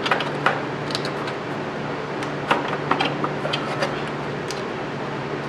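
Scattered light clicks and clinks of hand tools and small metal parts being handled in an engine bay, about eight in all, over a steady low hum.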